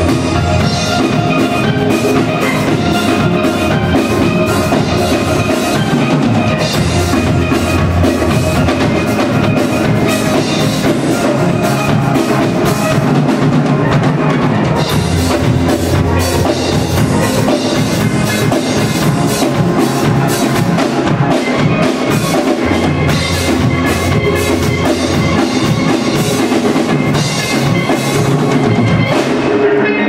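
Steel pan band playing a lively piece live, many pans struck in quick rhythm with drums and a steady bass beneath.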